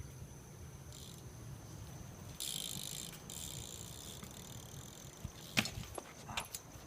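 BMX bike being ridden on pavement: a stretch of tyre hiss starting about two and a half seconds in, then a few sharp clicks and knocks near the end, over a faint steady high-pitched tone.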